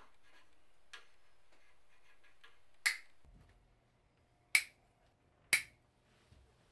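Sharp snaps from hands working thread on a wooden yarn frame: a faint tick about a second in, then three loud snaps, the first about three seconds in and the last two about a second apart near the end.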